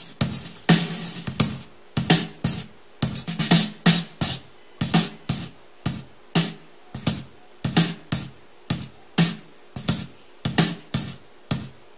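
A drum beat playing: kick drum thumps and bright snare or cymbal hits in a steady, repeating pattern.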